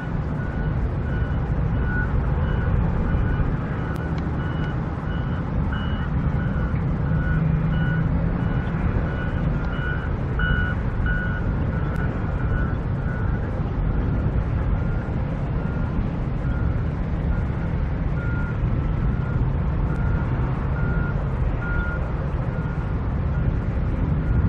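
A construction vehicle's backup alarm beeping repeatedly, about once a second, over a steady low rumble.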